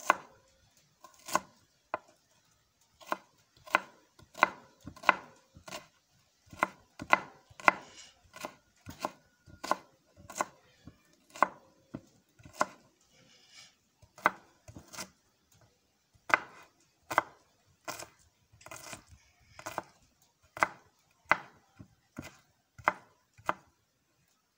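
Knife chopping onions on a cutting board: sharp single strokes at an uneven pace, about one or two a second, sometimes in quick pairs.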